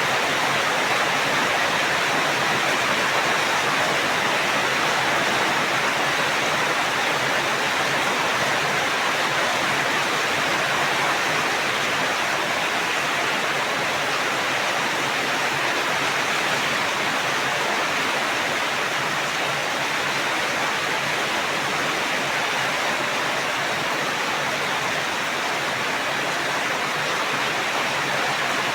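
Steady, dense rainfall: an even hiss of rain with no distinct drops or thunder.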